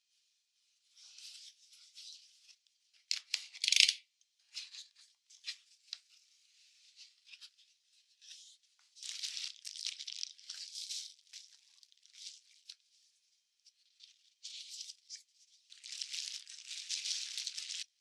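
Irregular rustling and rattling handling noises in uneven bursts, with a few sharper crackles about three to four seconds in.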